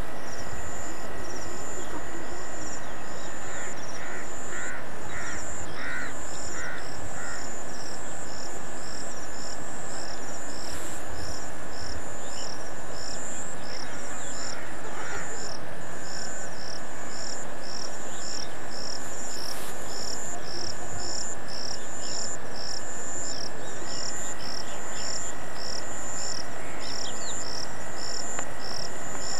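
Outdoor rural insect chorus: a high chirp repeating steadily about twice a second over a constant high-pitched drone. A bird calls about six times in a row a few seconds in.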